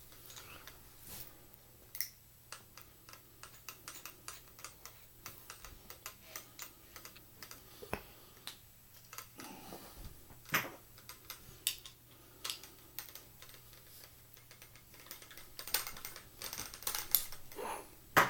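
A screwdriver working a screw into a flat-pack bookshelf: light, irregular clicking and tapping, several clicks a second, with a few sharper knocks.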